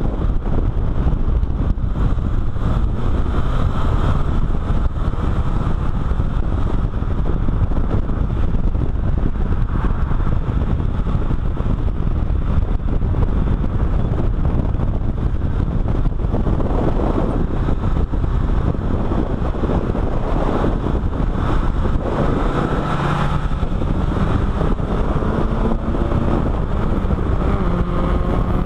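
Heavy wind rushing over a camera mounted outside on the side of a car at track speed, mixed with engine and road noise. Near the end an engine note rises in pitch as the car accelerates.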